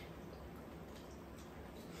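Faint sounds of two people eating with spoons: quiet sipping of soup and chewing.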